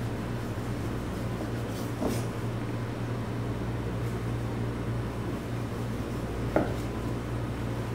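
Steady low room hum, broken twice, about two seconds and six and a half seconds in, by a short knock as a long kitchen knife cuts through a block of wagyu tri-tip and meets the cutting board; the second knock is the sharper one.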